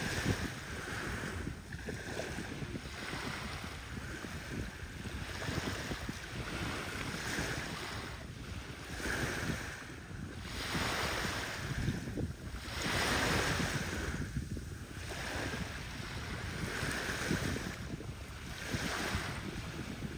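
Small waves lapping and washing up on a sandy beach, a soft swash every couple of seconds, with low wind rumble on the microphone underneath.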